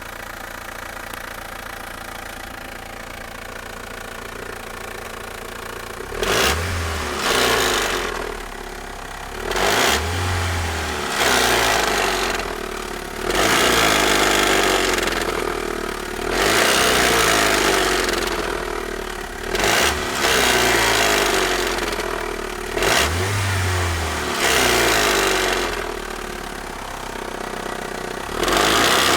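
2005 Mitsubishi Outlander's turbocharged 2.0-litre four-cylinder engine idling, then revved repeatedly in short blips from about six seconds in. The engine is making the strange noises the owner is recording.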